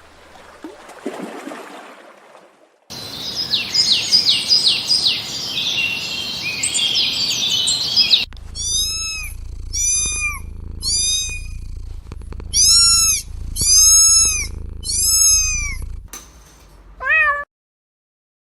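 A cat meowing over and over, about seven separate high-pitched meows, each rising and then falling in pitch, with a short rising call near the end. These follow a few seconds of rapid high squeaks or chirps.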